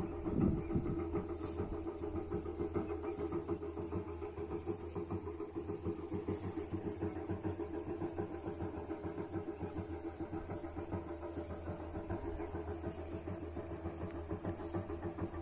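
An engine running steadily, a low hum with a fast, even throb.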